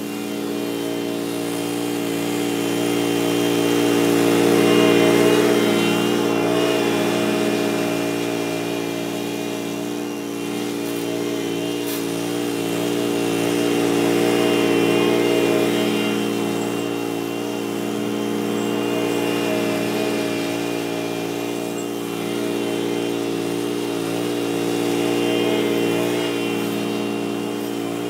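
Walk-behind lawn mower engine running steadily at a constant speed. It grows louder and fainter in slow swells as the mower is pushed nearer and farther away across the yard.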